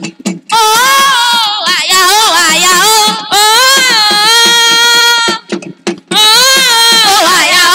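A high solo voice singing a slow melody in long held notes with wavering runs between them, breaking off briefly for breath just after the start and again about five and a half seconds in.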